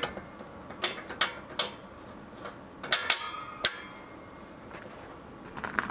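Scattered sharp metallic clicks and clinks of a hand tool and hardware against a metal tractor grill guard as it is bolted up. The clicks come about a second in, then in a cluster with a brief ringing clink around three seconds in, then stop.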